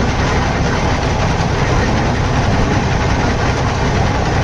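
Heavy engine of construction machinery running steadily with a deep, even drone.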